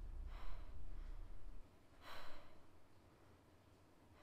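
A woman breathing heavily: two breaths, about two seconds apart, over a low rumble that cuts off about a second and a half in.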